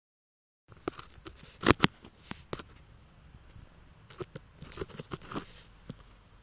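Handling noise on a handheld camera: irregular clicks, knocks and rustles starting a moment in, the loudest a quick double knock about two seconds in.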